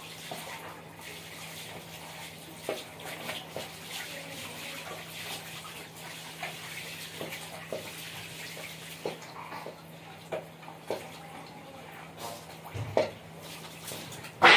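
Water splashing and sloshing as someone washes things by hand, with scattered light clinks and knocks.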